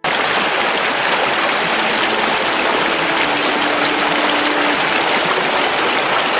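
Steady rushing of flowing water from a stream or waterfall, an even hiss with no breaks.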